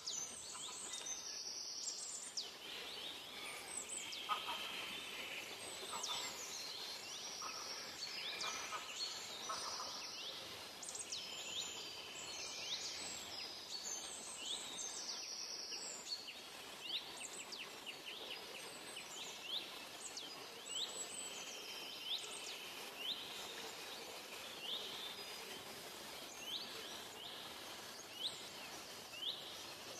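Forest birds chirping and calling: many short, high whistled notes and sweeps mixed with buzzy trills. Toward the end, short sliding notes repeat at about one a second.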